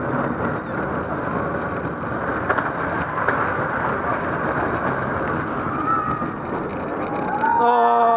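Shuttle Loop roller coaster train running at speed, heard from on board: a steady rush of wheel rumble on the steel track. Near the end, as the train climbs the spire, a held pitched wail rises over it.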